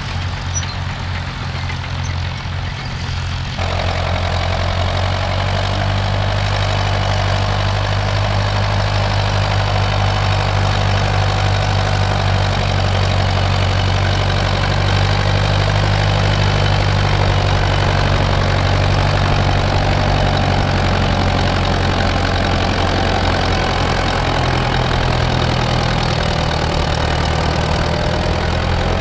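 Tractor diesel engine working in the field. From about three and a half seconds in, a County four-wheel-drive tractor's engine runs steadily under load as it pulls a seed drill.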